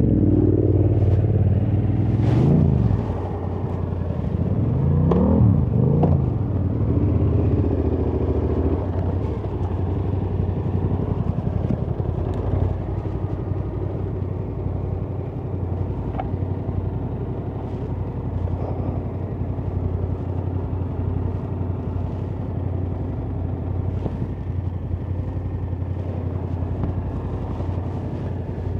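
Yamaha Ténéré 700 motorcycle's parallel-twin engine revving up and down a few times in the first several seconds, then running steadily at low revs as it rides a slippery off-road trail.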